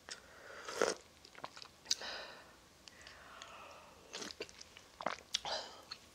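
A person eating spicy ramen noodles close to the microphone: chewing and slurping noodles and broth, with several short louder mouth noises and quieter chewing between.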